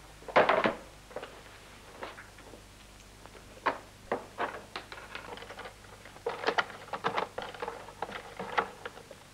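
Scattered knocks and clatter of a wooden board and other objects being handled on a desk, with one heavy thump about half a second in and a quicker run of knocks near the end.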